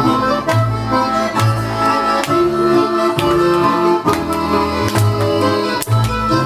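Instrumental folk tune led by an accordion, with held chords over a regular bass note about once a second.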